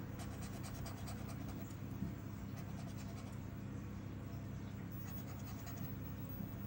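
Scratching the coating off a lottery scratch card: quick, faint rasping strokes, repeated in clusters.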